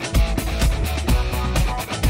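Upbeat rock background music with electric guitar and a steady drum beat, about four hits a second.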